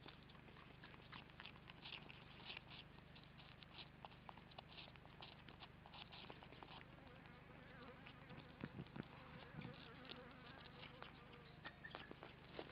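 Faint scratching and rustling as a kākāpō shifts in her nest, heard as scattered light clicks over a steady low electrical hum.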